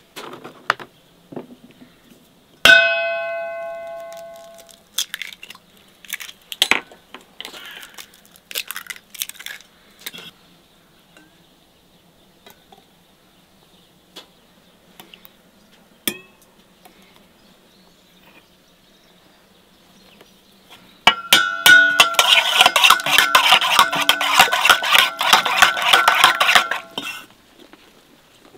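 Metal cookware and utensils being handled. A single loud clang a few seconds in rings on for about two seconds, then come scattered knocks and clinks. Near the end there is about six seconds of rapid metallic clinking of a utensil against a ringing metal pot or dish.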